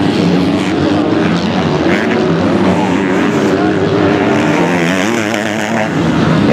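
250-class motocross bike engines revving hard, their pitch rising and falling as riders work the throttle through turns and jumps, with a warbling rev near the end.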